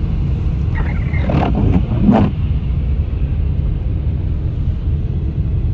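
Steady low rumble of a car's engine and road noise heard from inside the cabin while driving, with a brief higher sound about a second in.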